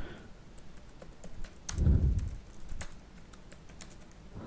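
Typing on a computer keyboard: irregular key clicks as a command is typed, with one short low sound about two seconds in.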